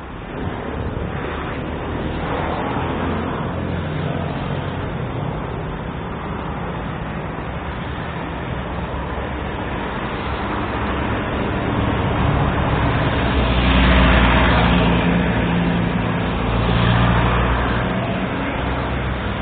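Street traffic: motor vehicles running and passing in a steady rumble, with engine hum. It swells loudest about two-thirds of the way through as a heavy vehicle goes by, then again briefly a few seconds later.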